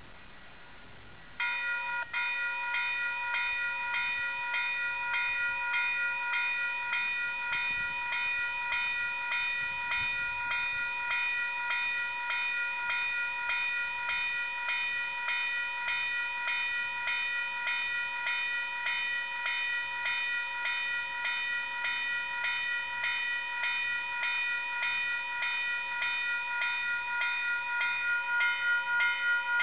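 Railway level crossing warning bells start ringing about a second and a half in. They keep ringing with steady, evenly spaced strikes, warning of an approaching train.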